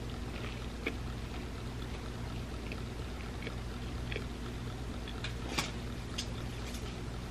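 Close-miked chewing of garlic bread: small scattered crunches and mouth clicks, the sharpest a little past halfway, over a steady low hum.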